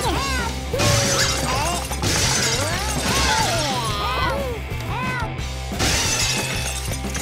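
Background music with a steady low beat, laid over the crunching and shattering of a washing machine being crushed by an excavator's steel scrap grapple. Short high squeals that slide up and down recur throughout.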